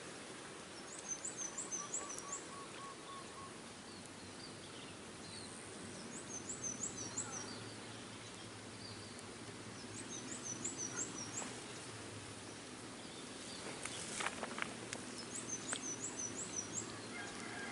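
A bird singing the same short phrase of about five high, quick notes four times, a few seconds apart, over steady outdoor background noise. A lower run of quick, even notes sounds a couple of seconds in.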